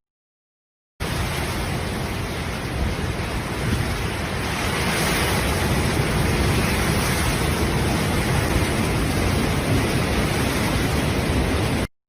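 Storm noise: a steady, dense rush of wind and driving water. It cuts in after about a second of silence and stops abruptly near the end.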